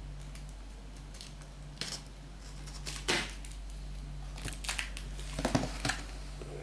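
Cardboard packaging being handled: scattered rustles, scrapes and light knocks, the loudest just after three seconds and again around five and a half to six seconds, over a steady low hum.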